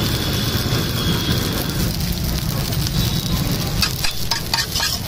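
Rice frying and crackling on a hot iron tawa, a steady sizzle over a constant low rumble. Near the end a few short sharp clicks.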